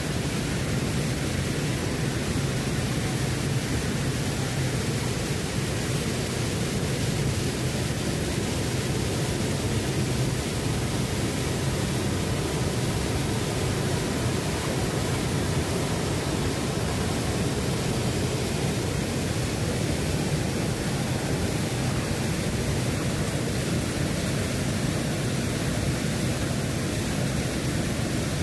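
Waterfall: a steady rush of falling water, unbroken and even in level, heaviest in the low range.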